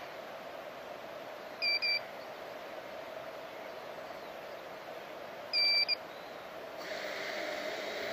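Quadcopter's on-board buzzer giving a short double beep twice, about four seconds apart, while its motors are stopped, over a steady faint hiss that grows louder near the end.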